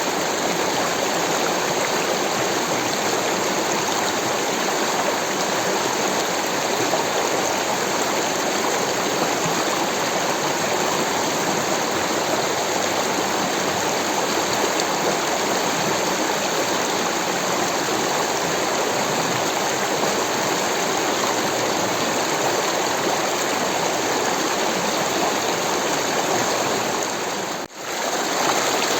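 Rushing water: a steady, even rush with a brief dropout near the end.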